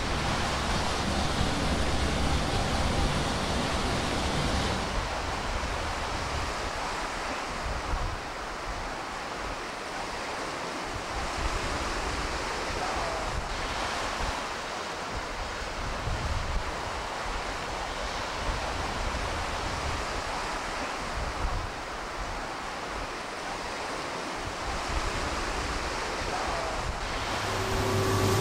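A low mechanical hum with steady tones for about the first five seconds, then a steady rushing noise like sea wash and waves, with a hum starting again near the end.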